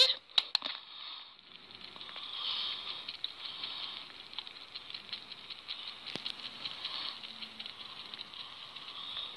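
Sugar gliders chewing pieces of chicken taken from fingertips, making quick wet clicking and smacking ticks, mixed with soft rustling of fleece. A few sharper clicks come in the first second, then the ticking goes on faintly.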